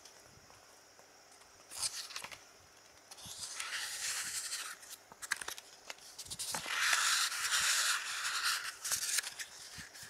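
Thick paper pages being turned slowly by hand, each turn a rustling swish. There are three turns: a short one about two seconds in, a longer one near the middle, and the loudest and longest near the end, with small paper ticks between them.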